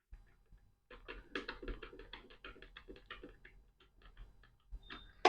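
Faint, quick clicking and ticking of a small screwdriver and screws as the SSD is screwed into the laptop's drive bay, starting about a second in and stopping near the end.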